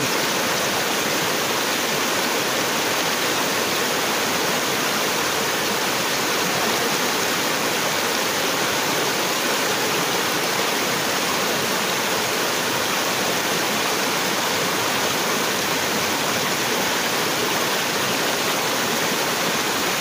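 Strong river cascade: white water rushing steadily over rocks.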